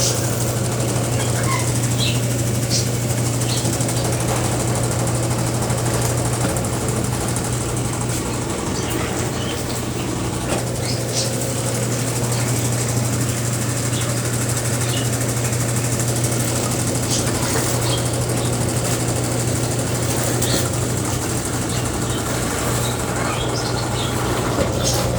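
Brastemp Ative 11 kg BWL11 washing machine running with a steady motor hum and churning noise, with a few faint short ticks.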